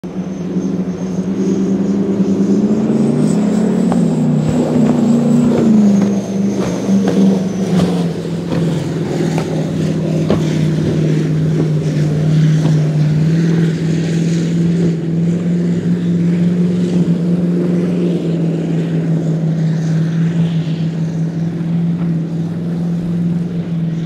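Cigarette 42 powerboat running fast: a loud, deep engine note with a high whine over it. The note climbs about three seconds in, then settles lower and holds steady by about eight seconds.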